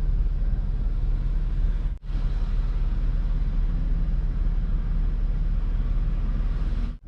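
A steady low rumble heard inside a car, with a hiss running above it. It cuts out for an instant about two seconds in and again near the end.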